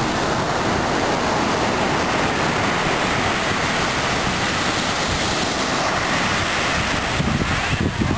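Ocean surf breaking on a beach: heavy swells from an offshore hurricane, a steady wash of waves. Wind rumbles on the microphone and gusts more strongly near the end.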